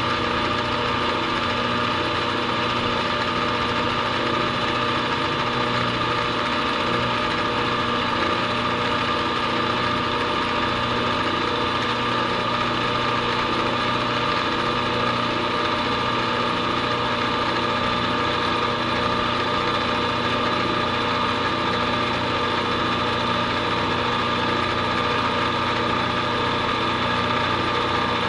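Vertical milling machine running steadily with its cutter milling a groove along the edge of an aluminum bar: a continuous motor and cutting hum with several steady tones.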